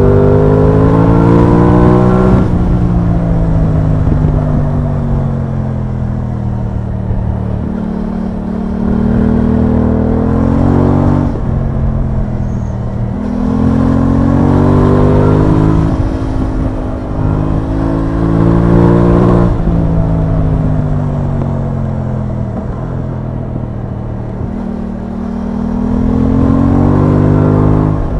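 Aprilia Tuono 660's parallel-twin engine under way. Its pitch climbs under acceleration and drops abruptly at upshifts, about two seconds in and again about two-thirds through, then falls away gradually as the bike slows. The climbs and falls repeat several times.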